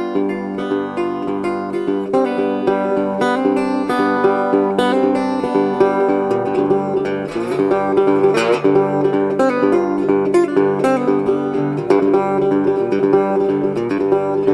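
Music: an acoustic guitar picking the instrumental opening of a song, with no singing.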